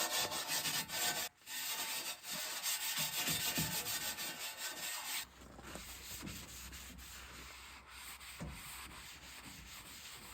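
Rapid rubbing strokes against a hard surface, like scrubbing or sanding by hand. They are louder for about the first five seconds, then fainter.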